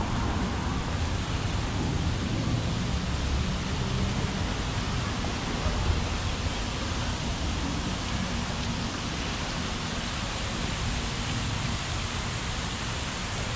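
Fountain water splashing in a steady rushing hiss, with a low rumble underneath.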